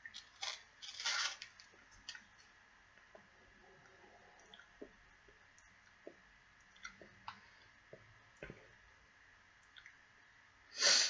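A person quietly eating a snack: faint scattered mouth clicks and small crunches, with handling of its plastic wrapper, and a short loud breath near the end.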